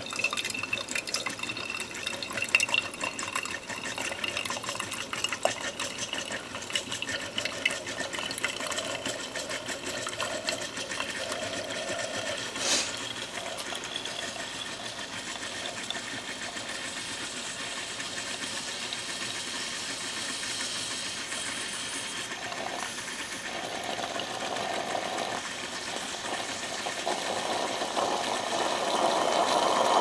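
Krups XP1020 steam espresso maker brewing: coffee sputtering and dripping from the brew head into the glass carafe with a steady hiss, a sign the boiler is still pushing the last of the water through. The crackling is thick at first, with one sharp click about halfway, and the hiss grows louder near the end.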